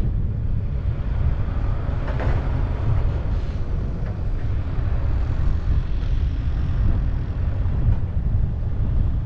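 Steady low rumble of a heavy diesel vehicle running.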